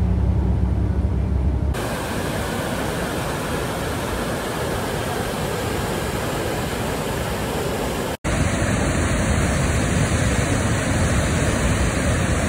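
Rushing whitewater: river rapids and then a waterfall churning through a rock gorge, a steady dense rush of water. For the first second and a half the low hum of a moving vehicle is heard instead, and about eight seconds in the water sound breaks off for an instant and resumes with a slightly different tone at a cut.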